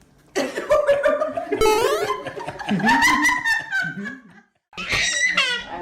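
Laughter with high, sweeping squeals. It cuts out for a moment about three-quarters of the way through, then similar high squeals start again.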